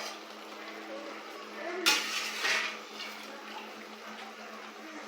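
A utensil knocking and clattering against a cooking pan once, about two seconds in, while the pie filling is mixed. A steady low hum runs underneath.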